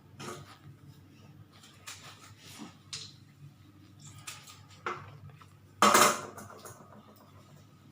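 Scattered knocks and clinks of salted lemon pieces being pressed down into a glass jar, with one louder clatter about six seconds in.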